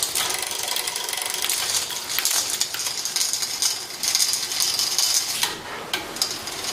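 Bicycle being worked on by hand: continuous light metallic clicking and clinking over a steady hiss.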